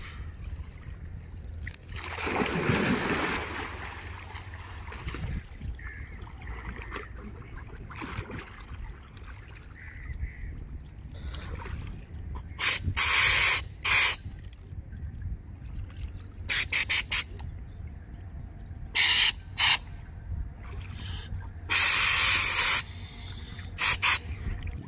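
Water splashing as scuba divers move at the surface, then several short, loud hisses of compressed air in the second half, typical of a scuba regulator being purged.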